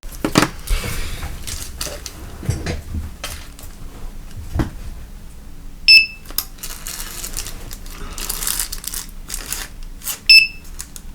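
Clicks and rustles of small plastic devices being handled, with two short, high beeps from the Sonoff T1 light switch's beeper, about six seconds in and again near the end. The beeps are the switch's confirmation beep when it accepts a remote control's code.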